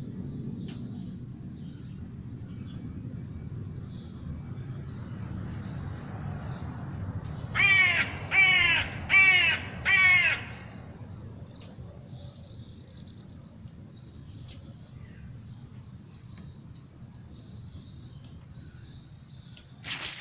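A crow cawing four times in quick succession, loud and harsh, over a small bird's short high chirps repeating about every half second. A low steady rumble runs underneath.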